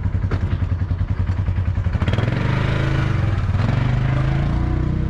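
Engine running close by with a rhythmic chug of about nine beats a second. About two seconds in it gives way to a steadier engine hum that wavers slightly in pitch.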